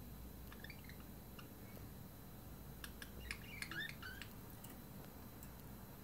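Small pet parrots chirping softly: a few short chirps under a second in, then a quick cluster of sharp chirps and clicks about three seconds in.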